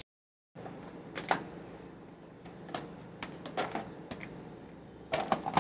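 Scattered light clicks and taps of plastic food containers being handled, with a quick cluster of clicks near the end.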